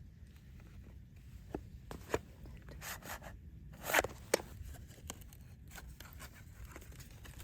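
Handling noise: scattered light clicks and a few short scraping rustles, the loudest pair about four seconds in.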